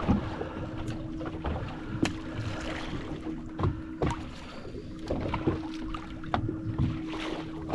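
Small fishing boat at sea: a steady low hum under rumbling water noise, with irregular knocks and clicks from the hull and gear.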